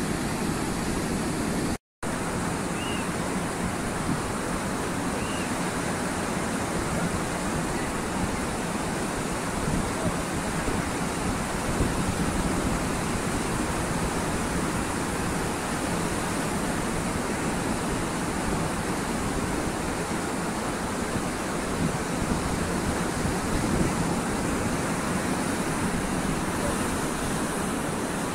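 Sea surf breaking on a beach, a steady wash of waves; the sound cuts out for a moment about two seconds in.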